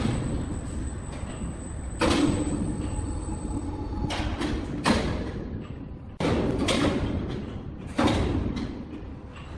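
Sawmill machinery handling timber: a series of heavy thuds, about every one to two seconds, each fading quickly, over a low steady machine hum.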